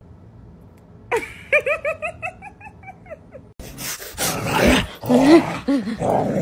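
Dachshund whining in a quick run of about eight short yips, each rising and falling in pitch, over about two seconds. Then a louder, noisy stretch with a few lower, bending dog calls.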